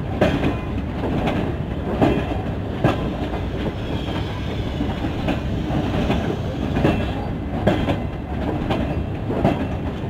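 Pakistan Railways passenger coaches rolling past: a steady rumble of wheels on rail, broken by sharp knocks about every second as the wheelsets cross rail joints.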